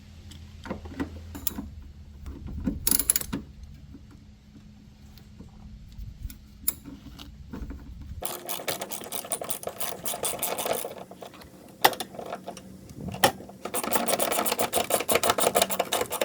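Ratchet wrench on a long extension clicking rapidly in two long runs while driving down a truck's battery hold-down bolt, after a few scattered knocks and clicks as the tool is fitted.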